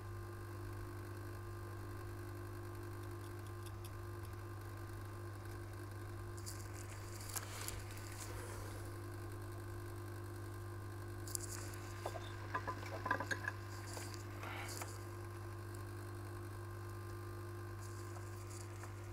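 Steady electrical hum of microsoldering bench equipment. Over it come two short stretches of faint scratching and small clicks from tools working on a phone logic board, a third of the way in and again around the middle.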